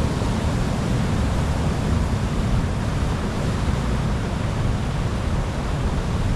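Sea waves and surf washing on the shore, a steady, unbroken wash of noise heaviest in the low end.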